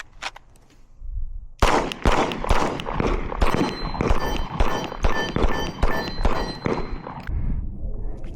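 A 9mm Glock 19 pistol fired in a rapid string, about three shots a second, starting about a second and a half in and stopping near seven seconds. Hit steel targets ring over the later shots.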